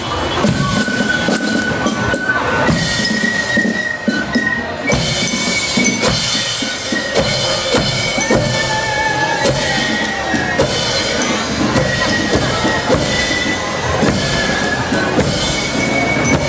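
Drum-and-fife marching band playing: high, held fife notes changing every second or two over a steady beat of bass drum and side drums.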